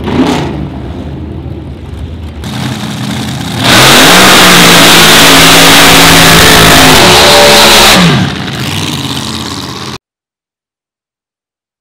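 Drag racing car doing a burnout. The engine runs at lower revs, then climbs about two and a half seconds in and is held very loud at high revs for about four seconds before the revs fall away. The sound cuts off abruptly near the end.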